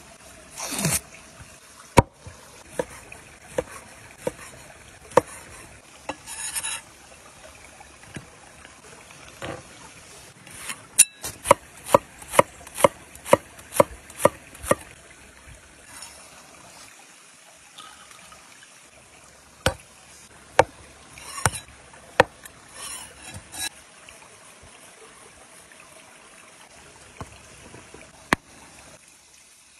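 A cleaver chopping green chillies on a wooden cutting board: sharp knocks, with a quick run of about two a second in the middle and scattered single knocks before and after. A stream trickles steadily underneath.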